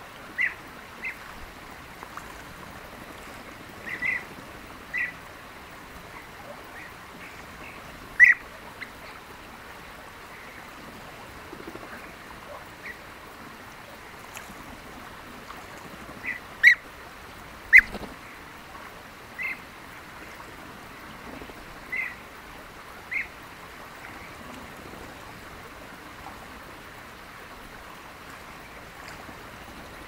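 European bee-eaters calling: short single calls, one every second or few, over a steady background hiss. Three sharp clicks stand out as the loudest sounds, one about a quarter of the way in and two a second apart past the middle.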